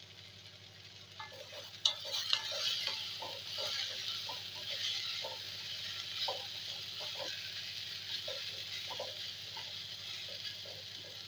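Grated pumpkin sizzling in hot oil in a metal kadai while a spatula stirs it, with repeated scrapes and knocks of the spatula against the pan starting about a second in, the sharpest two seconds in.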